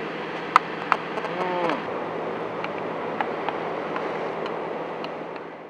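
A metal spoon clinking a few sharp times against a bowl over a steady low hum of idling engines and traffic, with a brief wavering sound about a second and a half in.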